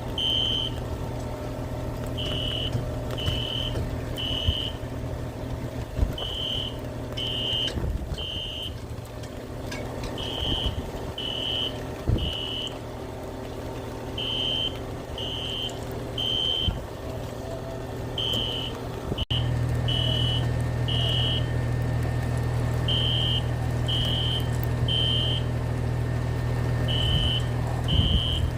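Building fire alarm sounding in the temporal-three evacuation pattern: three short high beeps, a pause, then three more, over and over. It is a false alarm, set off by water dripping onto the main fire alarm panel. A steady low hum runs underneath and grows louder about two-thirds of the way in.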